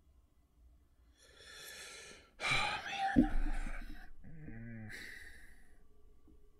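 A person breathing heavily and sighing, upset and near tears. There is a breath, then a loud sigh about two and a half seconds in with a thump, then a short voiced moan and another breath out.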